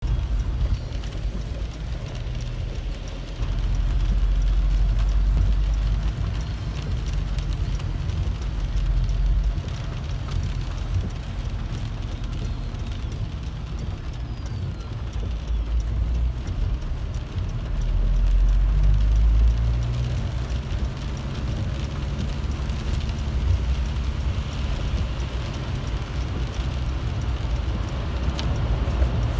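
Car driving on a wet road in rain, heard from inside the cabin: a deep, uneven rumble of road and engine noise that swells and eases a couple of times.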